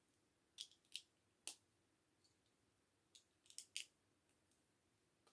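Faint, sharp clicks of plastic LEGO bricks being handled and pressed together: a few spaced clicks in the first second and a half, then a quick cluster about three and a half seconds in.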